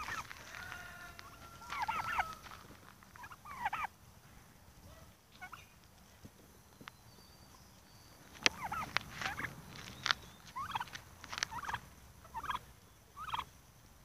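Domestic turkeys calling: clusters of short, high-pitched calls, with a quieter stretch in the middle and a sharp click about halfway through.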